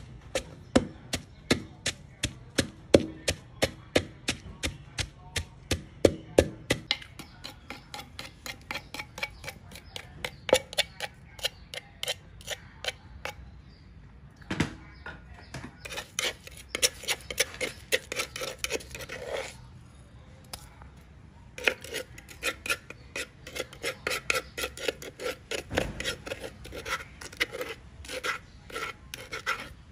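Wooden pestle pounding salt, red chillies and garlic in a mortar: steady knocks about three a second at first, then lighter, quicker strikes. Later there is dense clicking and scraping as a metal spoon works the finished chilli paste.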